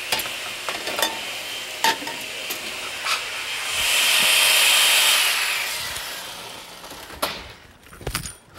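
Clattering knocks of a metal tray of kebab skewers being handled, then a countertop blender runs for a few seconds with a steady whine, whipping cream and sugar. It rises quickly and then tails off, followed by a couple more knocks.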